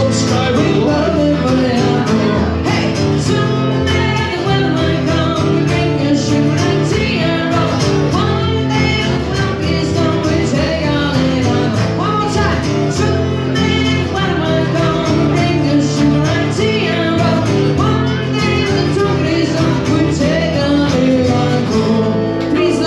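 A live duo plays a sea shanty on upright double bass and acoustic guitar, with sung vocals over the plucked bass line and strummed guitar.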